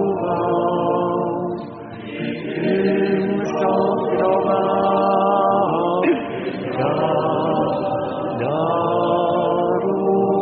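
Voices chanting together in long held phrases, breaking off briefly about two seconds and six seconds in.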